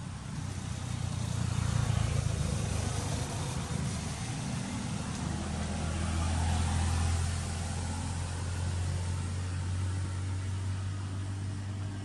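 An engine running steadily with a low hum, swelling a little around two seconds in and again around six to seven seconds in.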